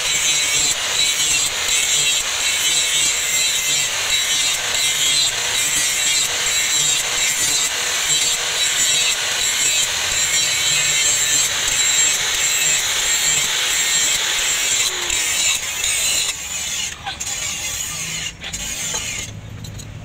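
An electric angle grinder with an abrasive disc grinds the steel of a rusty axe head, making a steady high whine over a harsh grinding hiss. About three-quarters of the way through, the grinding stops and the sound becomes weaker and uneven.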